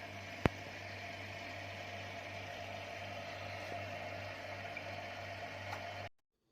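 Steady low hum with hiss. A sharp click comes about half a second in, and the hum cuts off suddenly near the end.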